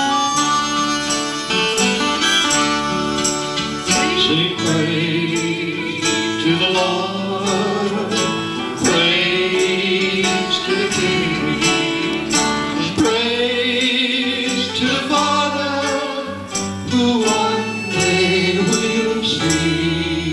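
Live acoustic gospel-country music: an acoustic guitar strummed on a steady beat, a harmonica playing the melody with wavering held notes, and singing voices.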